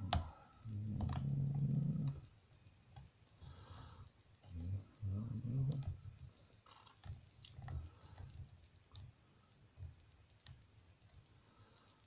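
Lock pick clicking and scraping against the pins inside a brass pin-tumbler lock cylinder under tension from a tension wrench, with scattered sharp clicks. Two stretches of low, muffled sound come in the first half.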